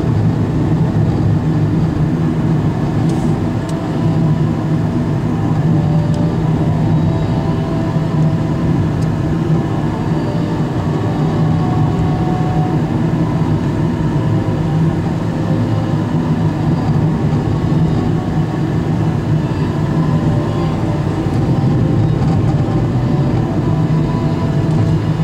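Steady low rumble of a moving car's engine and tyres, heard from inside the cabin while driving.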